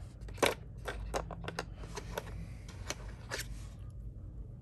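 Clicks and light rattles of a hard-plastic board-game miniature being taken from its plastic tray insert and handled in the fingers: one sharp click about half a second in, then several lighter clicks.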